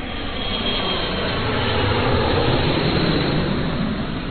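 A loud, steady rushing roar, like a large engine, that swells toward the middle and eases off slightly near the end.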